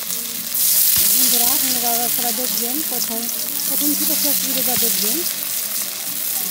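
Battered flower fritters frying in hot oil in an iron karahi: a steady, loud sizzle that grows stronger about half a second in as another batter-coated flower goes into the oil.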